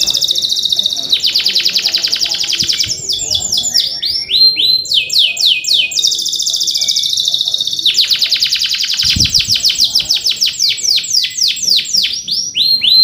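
Male canary singing a loud, unbroken song of fast rolling trills alternating with runs of repeated downward-swept chirps.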